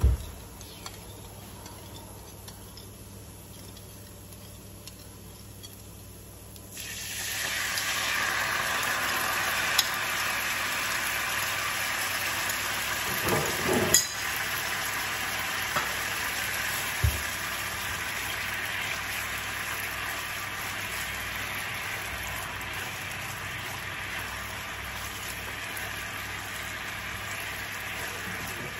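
Minced garlic frying faintly in a nonstick pan, then about seven seconds in a fish-sauce glaze hits the hot pan and sizzles loudly at once, easing into a steady bubbling simmer. A few knocks of a silicone spatula against the pan come as it is stirred.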